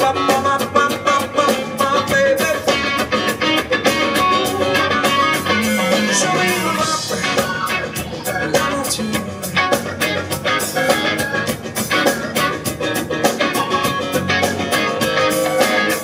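A live rock band playing: electric and acoustic guitars over a drum kit, with a steady beat of drum strikes.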